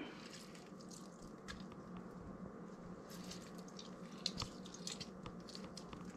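Lime wedges squeezed by hand over a wooden mortar: faint wet squishing and dripping with small clicks, and one light knock a little past halfway.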